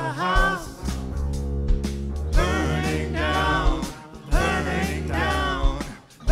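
Live rock band playing: electric guitars, keyboard and drum kit, with sustained low bass notes, kick drum hits and a melodic line that bends up and down in pitch. The music drops away briefly just before the end, then comes back in.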